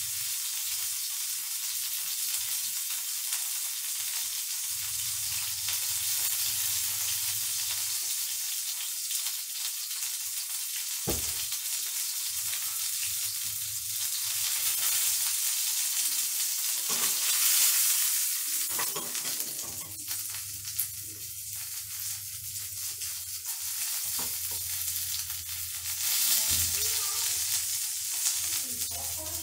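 Marinated deboned chicken thigh sizzling as it fries in a pan, a steady hiss with a few louder swells and one sharp knock about eleven seconds in.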